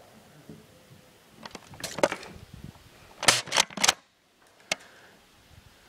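A scatter of sharp clicks and snaps, loudest in a quick run of three about three and a half seconds in, then a single click near the end.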